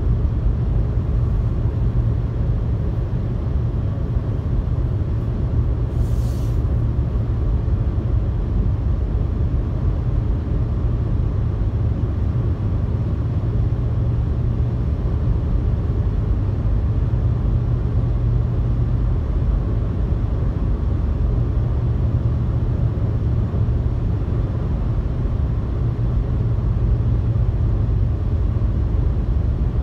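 Steady low rumble of tyre, road and engine noise heard inside a car cabin while cruising at highway speed.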